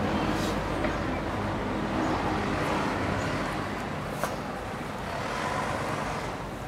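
Steady outdoor background noise, an even rushing hum with faint voices under it, and one short click about four seconds in.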